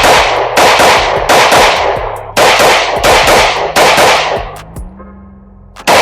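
Compensated Glock 19C 9mm pistol fired in a quick string of about six loud shots, each followed by a long ringing tail. After a short pause, one more shot comes at the very end.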